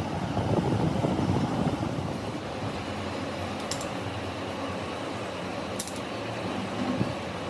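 Steady low rushing noise, louder for the first couple of seconds, with two short sharp clicks partway through.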